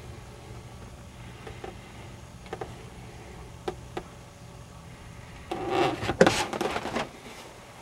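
Rubber trunk mat being lifted and handled, scraping and rubbing against the painted trunk floor, with a few light clicks first and a louder stretch of about a second and a half near the end.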